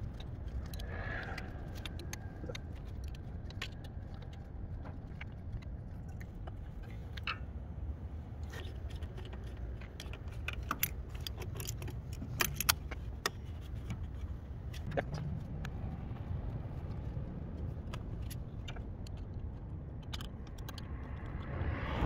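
Metal clicks and clinks of locking pliers working a spring hose clamp onto a radiator's lower hose, densest about ten to thirteen seconds in, over a steady low rumble.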